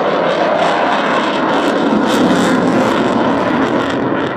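Loud jet noise from an RAF Eurofighter Typhoon's twin turbofan engines in flight, a little louder around the middle.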